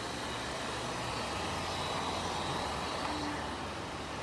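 Pet grooming blow dryers running: a steady rush of air with a faint high whine.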